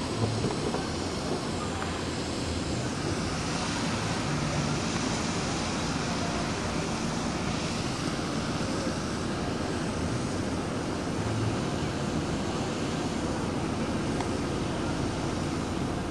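Steady rushing road and engine noise of a car driving slowly, heard through the open window, with no distinct events.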